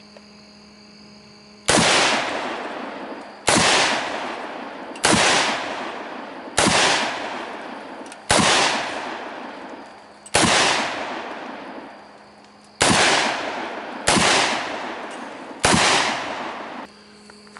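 Semi-automatic rifle firing nine single shots in slow, spaced succession, about one every two seconds, each crack followed by a long fading echo.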